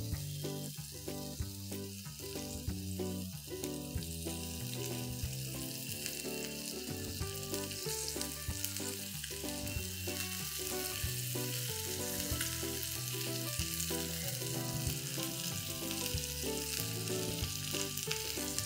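Masala-coated fish pieces on skewers sizzling steadily in oil on a hot iron tawa, with soft background music.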